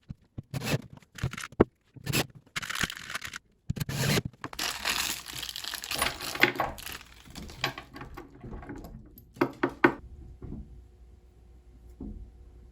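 Hands working with toilet hardware and its packaging: a few sharp knocks and clicks, then several seconds of rustling and tearing that dies down about ten seconds in.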